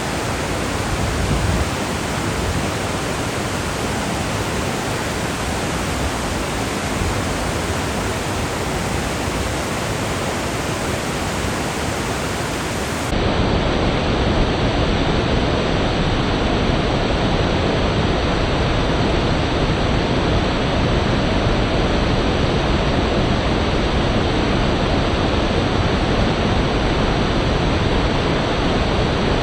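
Rushing river water, a steady even rush of fast-flowing water. About thirteen seconds in it changes abruptly to a slightly louder, fuller rush.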